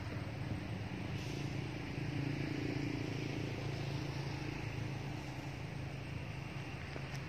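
A steady low engine hum, swelling slightly two to three seconds in.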